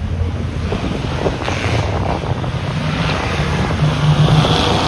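Two vintage drag cars, a 1960s Chevrolet pickup and an old sedan, rumbling at idle at the starting line, with the pitch rising a little now and then as the throttle is touched. There is some wind noise on the microphone.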